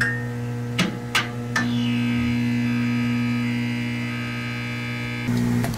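A steady, low electronic drone, with higher sustained tones layered over it and a few sharp hits in the first two seconds. It fades just before the end.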